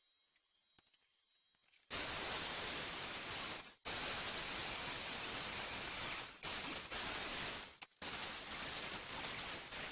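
A steady hiss of metal being cut, running in four long stretches with brief pauses between them, after near silence for the first two seconds.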